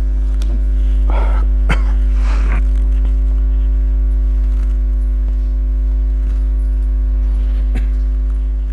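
Steady electrical mains hum from a microphone and sound system, low and loud, with several fainter steady tones above it. A few short breathy noises come about one to two and a half seconds in, and a single click comes near the end.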